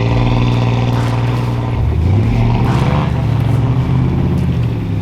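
Truck engine working under load while towing a stuck vehicle out of the snow on a hooked-on line; the engine note dips about two seconds in, then climbs again.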